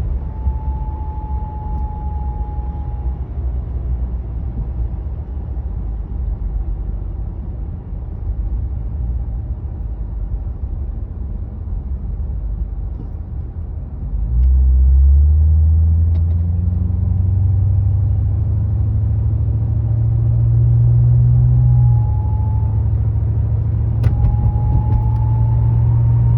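Pontiac G8 GT running down the road with a low engine and road rumble, carrying a faint high-pitched whine that fades after the first few seconds and comes back near the end, rising in pitch. About halfway through the engine pulls harder and its note rises and gets louder. The owner hears this whine from about 30 mph into the 40s and when decelerating, and places it at the back of the engine or near the transmission.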